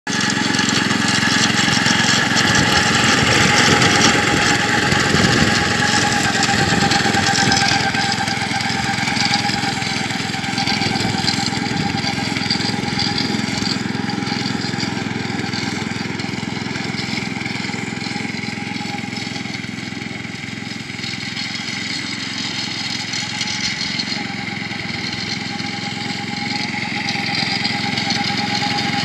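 Merry Tiller rotary mower's small engine running steadily while mowing grass. It is loudest at first, grows fainter as the mower moves away, and gets louder again near the end as it comes back.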